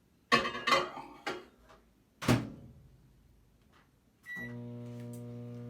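Microwave oven being loaded and started: clicks and knocks as the bowl of butter goes in, the door shut with a knock about two seconds in, then a short beep and the microwave starts running with a steady hum, heating the butter to melt it.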